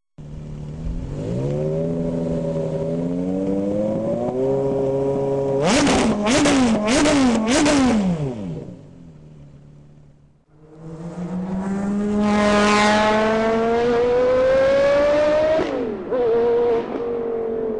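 Porsche Carrera GT's 5.7-litre V10 on straight pipes, running and climbing in pitch, then blipped in four quick sharp revs about six seconds in. After a brief drop near ten seconds it accelerates hard in a long rising pull, with an upshift near the end and another a second later.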